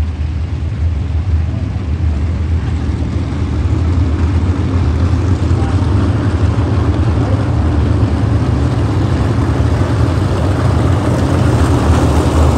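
A pack of winged dirt-track sprint cars running together, their engines a dense, steady drone that grows steadily louder as the field comes around the turn toward the grandstand.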